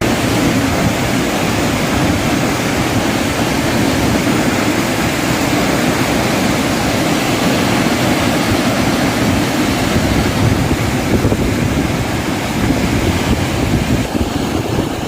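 A waterfall's steady roar of falling water, running full with rainy-season flow.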